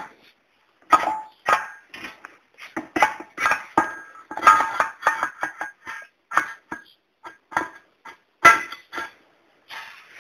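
Steel pivot shaft knocking and clinking against the steel rocker-arm bracket as it is worked into the bracket's bore. The sound is a string of irregular sharp knocks, some with a short metallic ring.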